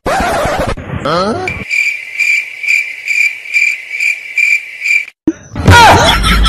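Cricket chirping sound effect: a steady, evenly pulsing chirp about twice a second that starts and stops abruptly, the comic 'awkward silence' cue. It follows a brief voice sound, and a loud voice comes in near the end.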